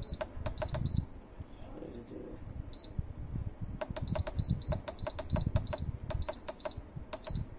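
Digital heat press controller beeping at each press of its minus button as the time setting is stepped down: short, identical high beeps, a few in the first second, then a quick run of about three a second from about four seconds in, over a low rumble.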